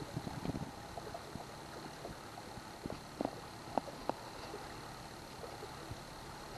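Steady running noise of a boat under way on a Yamaha 70 hp outboard, with three short sharp knocks a little past the middle.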